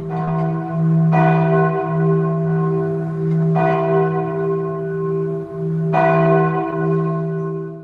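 A bell tolling: three strokes about two and a half seconds apart, each ringing on into the next with a deep, steady hum beneath.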